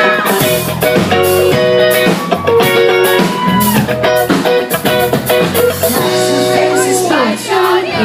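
Live pop-rock band playing, with electric guitar chords over a drum kit beat.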